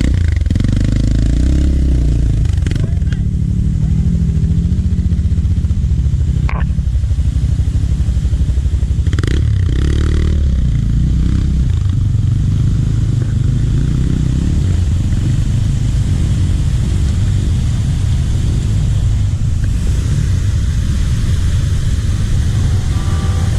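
Trail motorcycle engine running while riding, its pitch rising and falling with the throttle.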